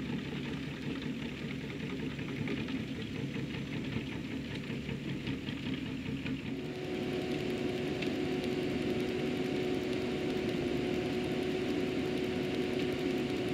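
New Holland T7.210 tractor's six-cylinder diesel working steadily, pulling a Bunning Lowlander 15 muck spreader as it spreads. About six seconds in the sound grows louder and steadier, with a constant hum on top.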